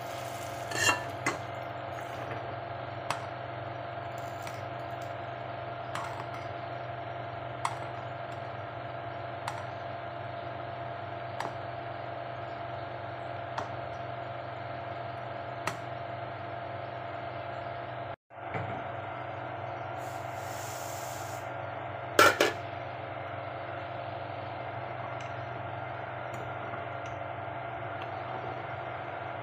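Metal ladle stirring milky kheer in a large metal cooking pot, tapping and clinking on the pot about every two seconds over a steady hum. A louder double clank comes about three quarters of the way through.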